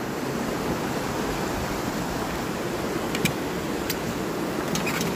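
River rapids rushing steadily over rocks, with a few short clicks and crackles in the second half.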